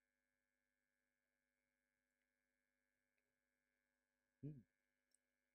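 Near silence with a faint steady electrical hum, broken once, about four and a half seconds in, by a short vocal sound with a falling pitch.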